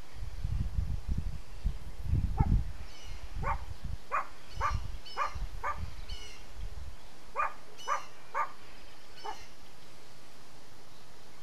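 A dog barking, about ten short barks in uneven runs, over a low rumble that dies away about seven seconds in.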